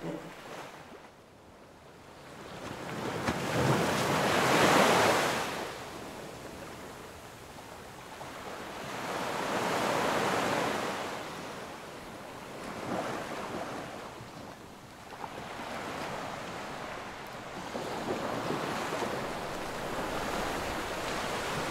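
Ocean surf: waves breaking and washing up a beach, rising and falling in slow swells, the loudest about five seconds in and another about ten seconds in.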